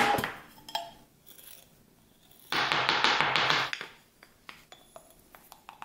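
Matcha powder being scooped from a tin with a metal lid and transferred into a small glass jar. A click as the lid comes off, a scraping rush lasting about a second near the middle, then a string of light taps and clicks.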